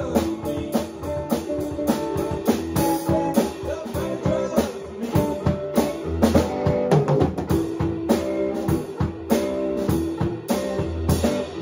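Band rehearsing a song: drum kit with cymbals keeping a steady beat under held guitar notes.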